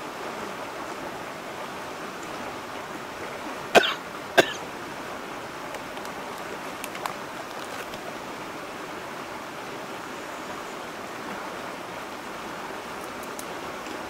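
Clear mountain stream running over a rock ledge into a pool, a steady rush of water. About four seconds in, two short, sharp, loud sounds come half a second apart, louder than the water.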